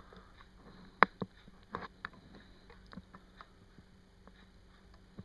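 Scattered small clicks of a Canon 550D's buttons being pressed. The sharpest click is about a second in, with fainter ones through the first half, over faint room tone.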